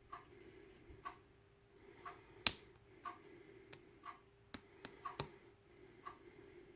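Lock pick and tension wrench working the pins of an ABUS padlock: scattered sharp metal clicks, the loudest about two and a half seconds in. Under them a steady tick comes about once a second, with a faint steady hum.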